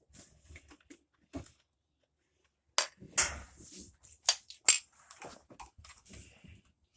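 Sharp metallic clinks and knocks, about four loud ones between three and five seconds in, with faint handling noise between them: tools or metal parts being handled.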